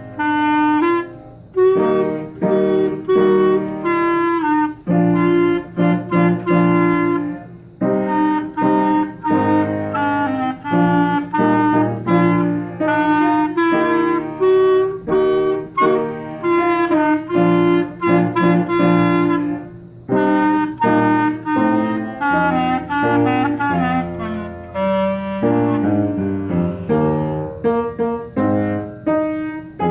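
Clarinet playing a lively melody in short phrases over band accompaniment with piano.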